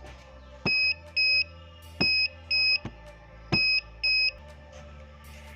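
Piezo buzzer of an Arduino vibration-sensor alarm sounding three pairs of short, high-pitched beeps, each pair opening with a sharp knock.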